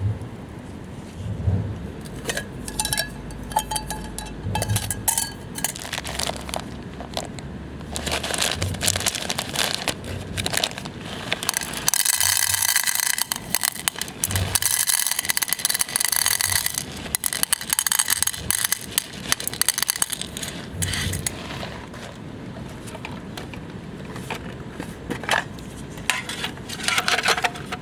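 Camp gear being handled: a long run of short metal clinks and scrapes, busiest and loudest in the middle.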